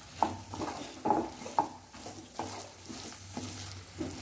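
Thick onion-tomato masala being stirred in a black kadai, a utensil scraping through it against the pan in about seven short, uneven strokes. A light sizzle runs under the strokes as the masala fries.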